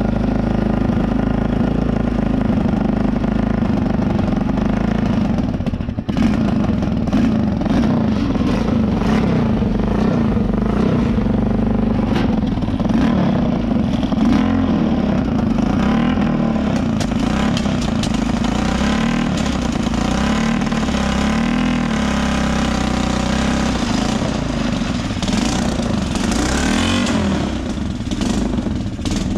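The kick-started 250cc engine of a home-built racing lawn tractor is running and revving unevenly, with its pitch rising and falling, and it dips briefly about six seconds in. It runs rough, like a potato: intake air leaks mean it will only keep going on half choke and stalls unless revved hard.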